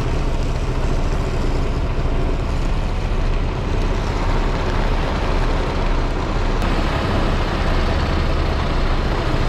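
Semi-truck's diesel engine running with a steady low drone, heard close to the cab.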